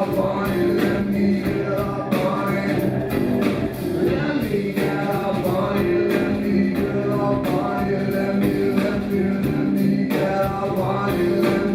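Live rock band playing at full volume, with singing over the instruments.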